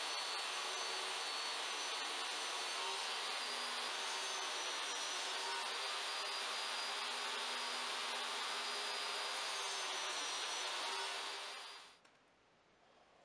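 DeWalt jobsite table saw running steadily with a high motor whine while cutting plywood. It cuts off quickly about twelve seconds in.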